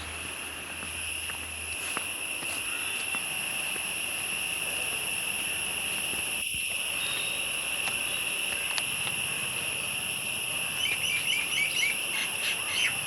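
Steady, high-pitched insect drone, cricket- or cicada-like, throughout. A rapid series of short bird chirps joins in near the end.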